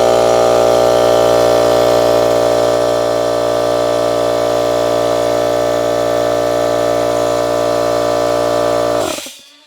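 Ridgid electric air compressor running, a steady, pretty loud motor hum with many tones, shutting off about nine seconds in.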